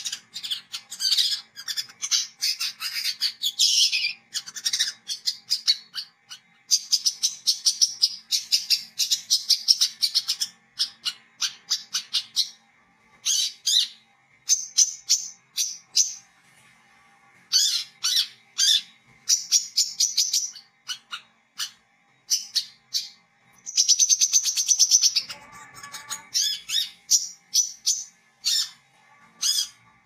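Brown-throated sunbird (kolibri kelapa, wiceh) singing: rapid chattering and twittering runs of fast clicky high notes, phrase after phrase, broken by short pauses.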